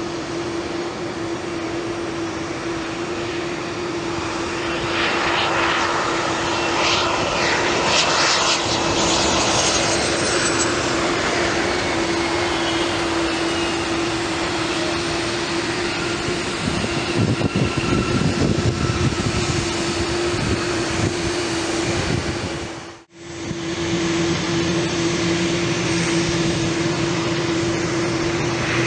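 Jet engines of a Contour Airlines Embraer ERJ regional jet, its twin rear-mounted turbofans making a steady rush and whine on approach and landing, with a deeper rumble for a few seconds after touchdown. After a sudden break about three-quarters of the way through, the similar steady engine sound of a second, larger business jet on final approach.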